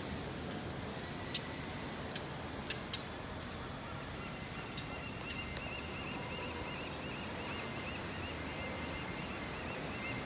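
Steady outdoor wash of wind and bay water, with a few sharp clicks in the first three seconds and a rapid run of short high chirps through the second half.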